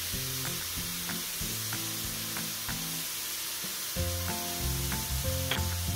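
Diced pancetta and mixed wild mushrooms sizzling in hot olive oil in a frying pan, a steady hiss with small scattered pops. Soft background music with a bass line runs underneath and gets louder a little past halfway.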